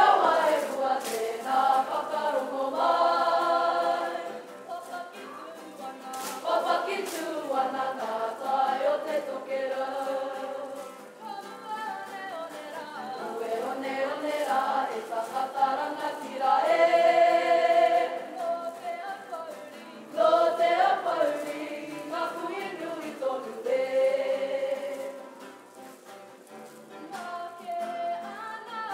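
Kapa haka group of men and women singing a waiata-ā-ringa (action song) together, the voices swelling and easing phrase by phrase.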